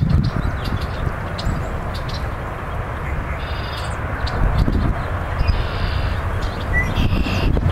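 A steady, low outdoor rumble fills the background, strongest in the bass. A few short bird calls sound over it: about three seconds in, around six seconds, and again near the end.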